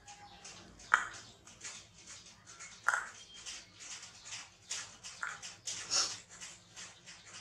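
Baby monkey playing with a hollow plastic toy on a tile floor: a steady run of small clicks, taps and rustles as it mouths, grips and rolls with the toy, with a few sharper knocks about one and three seconds in.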